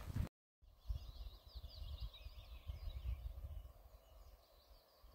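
A small songbird singing a run of quick, high, twittering notes, fading out about three and a half seconds in, with a few softer notes near the end. Wind rumbles on the microphone underneath.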